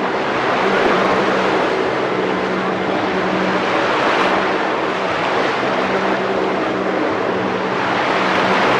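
Jet ski engine running with a steady drone as the craft carves tight turns, over a loud hiss of spray and churning water.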